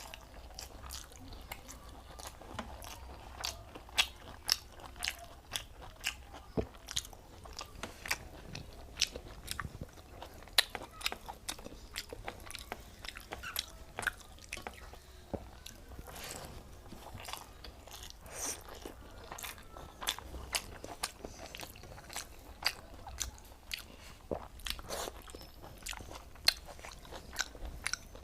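Close-up eating sounds: a person chewing a meal of rice and cauliflower curry, with many irregular sharp crunches and wet mouth clicks.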